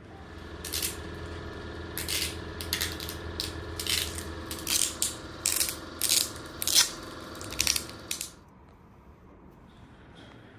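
Sharp metallic clicks and clinks of small steel knife parts being handled and fitted together, about a dozen at irregular intervals, over a steady machine hum; both stop about eight seconds in.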